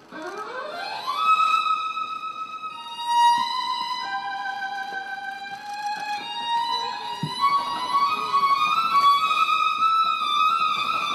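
Solo violin playing a slow melody: it slides upward over about a second into a high held note, then moves through long sustained notes.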